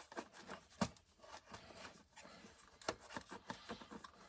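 Faint, scattered clicks and light knocks of hand tools and parts being handled while a Stihl MS 261 C chainsaw is taken apart, with a sharper knock about a second in and another near three seconds.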